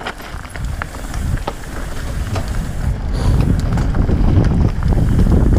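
Wind rushing over a helmet-mounted camera's microphone on a mountain bike descending a gravel trail, a low rumble that grows steadily louder as speed builds. Scattered clicks and rattles from the bike and the gravel under the tyres come through it.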